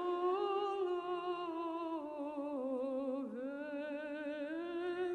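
A single voice humming one long, wordless, wavering note that dips lower a little past halfway and then climbs back up.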